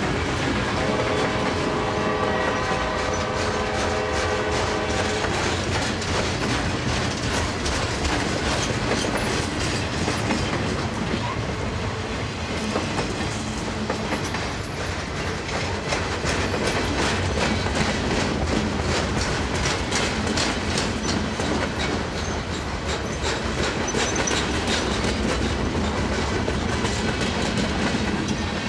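Freight train's loaded flatcars rolling steadily past: a continuous rumble of steel wheels with clickety-clack over the rail joints. A steady tone of several notes sounds for about four seconds near the start.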